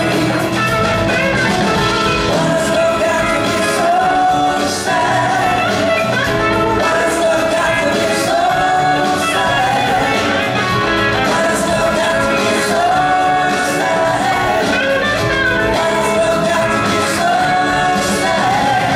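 A blues-rock band playing live at full volume: electric guitars over bass, keyboards and drums, with a lead line that bends and glides on top.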